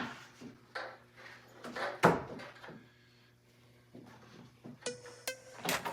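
A few hard wooden knocks and clunks of framing lumber and tools being handled, the loudest about two seconds in. A steady humming tone, like a small motor, starts near the end with more clicks over it.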